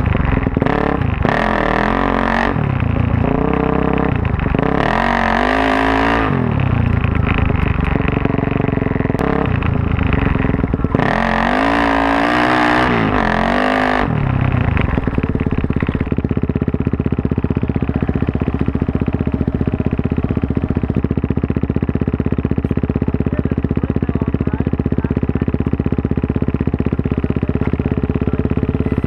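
Suzuki DR-Z400S dirt bike's single-cylinder four-stroke engine, bored out to 440 with a full Yoshimura off-road exhaust, revving up and down several times. About halfway through it settles to a steady pitch.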